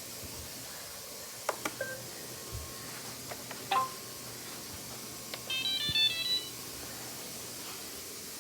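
Robot vacuum cleaner's electronic chime: a few clicks, a single short beep, then a quick melodic jingle of stepped beeps about six seconds in, over a faint steady hiss.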